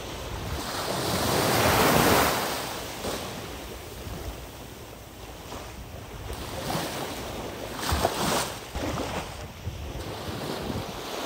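Small waves washing up on a sandy beach, one wash swelling loudest about two seconds in, with some wind on the microphone.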